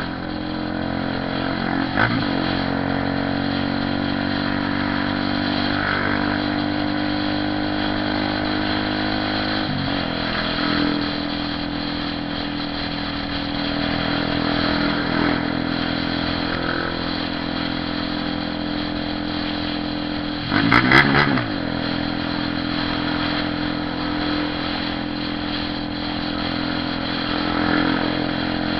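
Honda CB 300R motorcycle engine running steadily, with its pitch shifting briefly a couple of times and a loud short rev about three-quarters of the way through.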